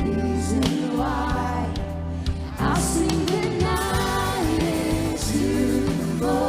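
Worship band playing a gospel-style praise song with a lead vocalist singing over bass, drums and keys.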